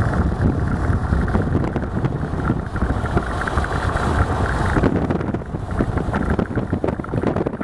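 Road and engine noise of a moving car, with wind gusting on the microphone.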